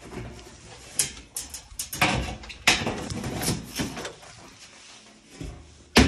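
Sheet-metal top cover of a Whirlpool/KitchenAid front-loading washer being handled: a run of scrapes, clicks and clatters as it is lifted and turned around on the cabinet, with a sharp knock at the very end.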